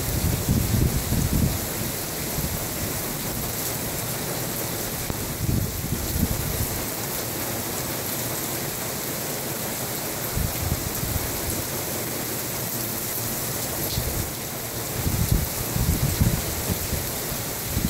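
Steady rain of a summer rainstorm, a constant hiss, with short low rumbles near the start and again near the end.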